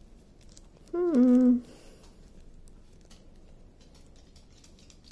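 A woman's short hummed "hmm" about a second in, dropping in pitch and then held briefly. Around it, faint ticking and crinkling of small plastic bags of rhinestone drills being handled.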